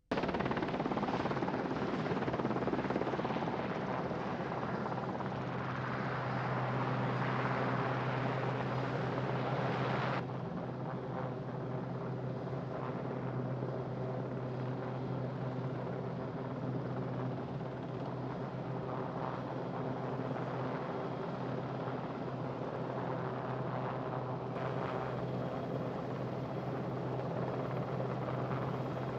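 Westland Sea King rescue helicopter's rotors and turbine engines running steadily, with a constant low drone under a loud rushing noise. About ten seconds in the hiss drops away sharply, and it returns near the end.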